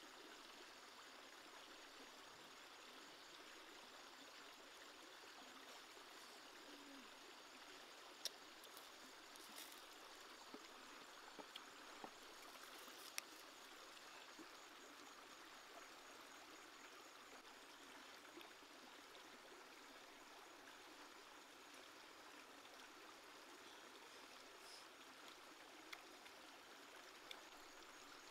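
Small rocky stream flowing steadily, faint, with a few light clicks around the middle.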